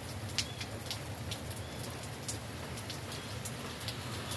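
Steady rain falling, with sharp taps of single drops scattered through it.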